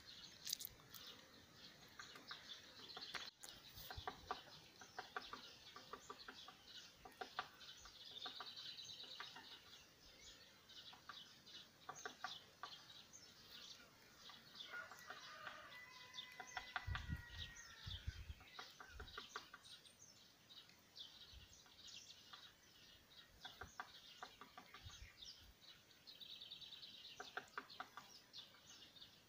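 Faint birdsong: many short chirps and trills from small birds, with one longer call held for about two seconds a little past the middle. A few soft low thumps come at the same time as that call.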